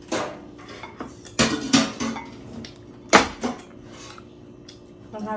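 Plates, bowls and cutlery clinking and knocking on the dining table as food is handled: a handful of sharp clatters, the loudest about three seconds in.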